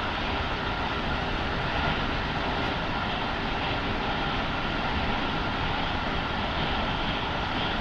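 Keikyu 1000 series electric train running at steady speed, heard from inside the car: an even rumble of wheels on rail with faint steady tones and no change in pitch.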